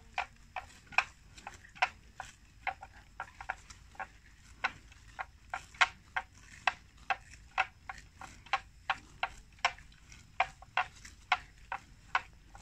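Water buffalo grazing close by, tearing off mouthfuls of grass in short, crisp snaps, irregular but about two or three a second.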